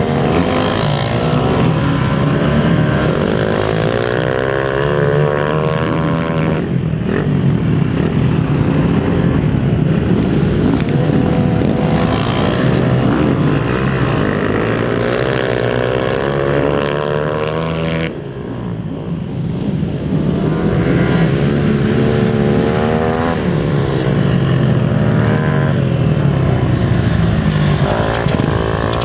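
Dirt-track motorcycles lapping a dirt oval, their engines revving up and down through the turns and straights. A short lull comes about two-thirds of the way through.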